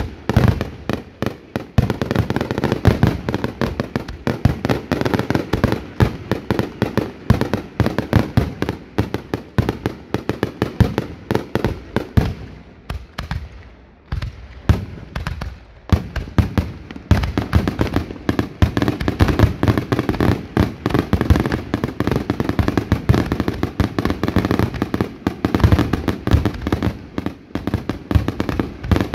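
Fireworks going off in a rapid, continuous barrage of bangs. It eases into a short lull about halfway through, then picks up again just as thick.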